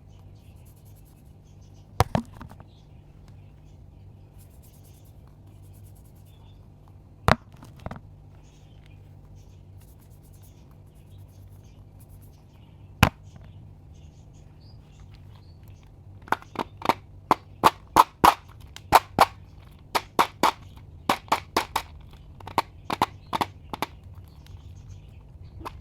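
Sharp clicks over a steady low hum: three single clicks spaced several seconds apart, then a quick irregular run of about twenty clicks, two or three a second.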